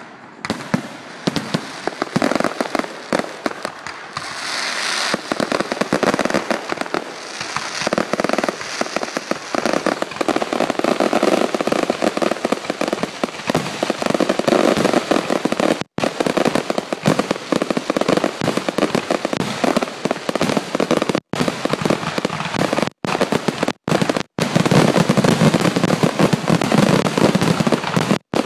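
Aerial fireworks display: a dense, continuous barrage of shell bursts and crackling stars, growing louder near the end.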